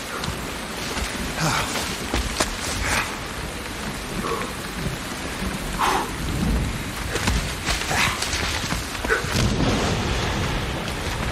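Steady rain falling, with low rumbles of thunder about halfway through and again near the end.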